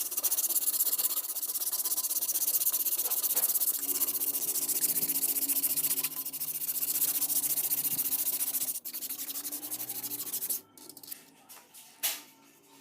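Steel cleaver blade made from leaf spring being sanded, a steady rasping of abrasive on metal that stops about ten and a half seconds in.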